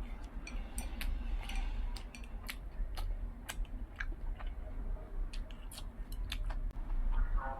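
A person chewing a sauerkraut dumpling: irregular small clicks and smacks of the mouth, several a second, over a steady low hum.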